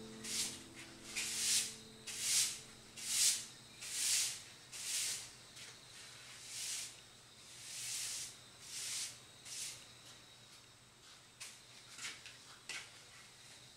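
A bristle broom sweeping a hard floor: about a dozen brushing strokes, roughly one a second, fading after about ten seconds, then a few light taps near the end.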